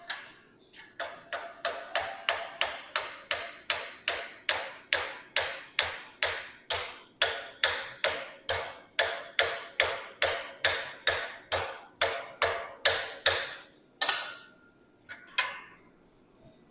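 Hand hammer striking the end of a heated 1/4-inch steel round bar held in a rivet header, upsetting it into a rivet head: a steady run of sharp, ringing metal-on-metal blows at about three a second, then a short pause and a few last blows.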